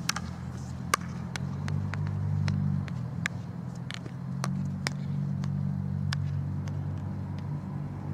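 Field hockey stick tapping the ball in quick, irregular sharp clicks as it is dribbled on artificial turf, the sharpest about a second in. Under the taps runs a steady low hum.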